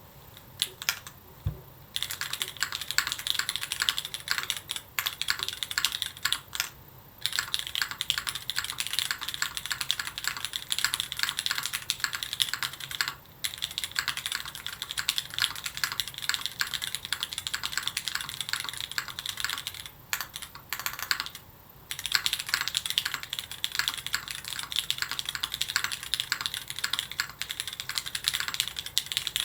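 Typing on a Keycult 2/65 mechanical keyboard with lubed Cherry MX Hyperglide Black linear switches on an aluminium plate and GMK Shoko keycaps. A few single key presses come first, then steady fast typing, broken by a few short pauses.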